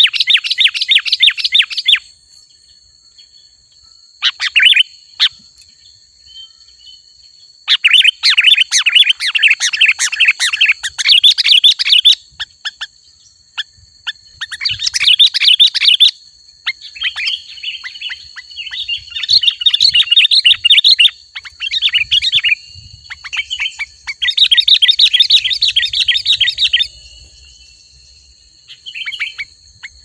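Sooty-headed bulbul (kutilang) calling in fast, chattering bursts of rapid notes. Each burst lasts one to four seconds, with short pauses between them.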